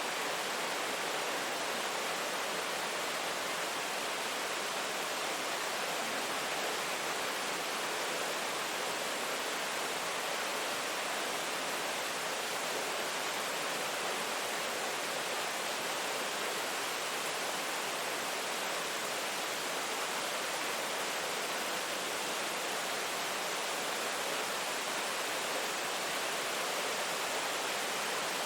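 Steady rain falling, an even hiss without separate drops or thunder.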